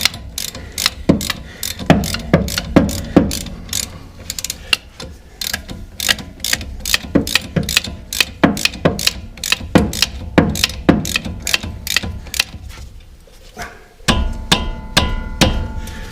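Ratchet wrench clicking in uneven strokes as a front brake caliper bolt is tightened down into its new rubber sleeve. After a short pause, a steadier mechanical whirring with a faint whine takes over near the end.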